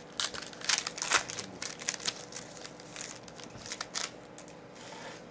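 Trading cards being handled and flipped through by hand: a run of quick, crisp flicks and rustles of card stock that stops about four seconds in.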